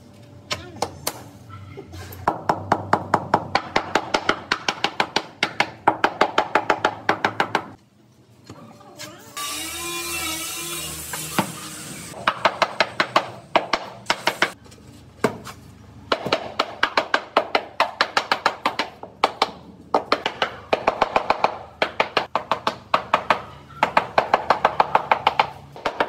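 Rubber mallet tapping a large ceramic floor tile in quick runs of taps, several a second with short pauses, bedding it down into the combed mortar. About ten seconds in there is a couple of seconds of hissing noise.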